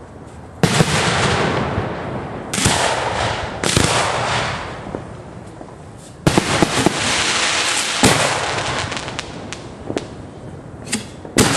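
Fireworks firing at close range from ground racks: about six sudden launch blasts, each followed by a second or two of dense crackling and hissing that fades away, with a few single sharp cracks in between.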